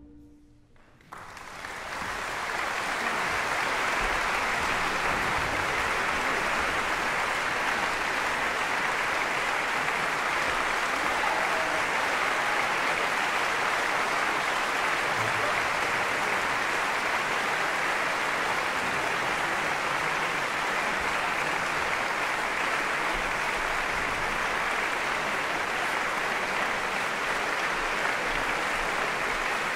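The last of an orchestra's final chord rings out and fades. About a second in, a large concert-hall audience starts applauding, and the applause then holds steady.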